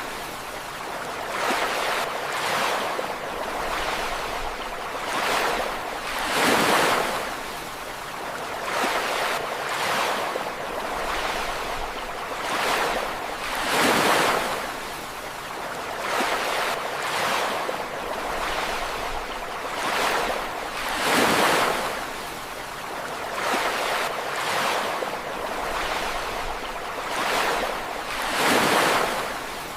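Sea waves breaking on a beach, the rush of surf swelling and fading, with a big breaker about every seven seconds and smaller ones in between.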